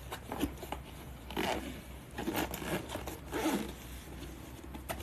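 Rasping, zipper-like scraping strokes, three louder ones about a second apart.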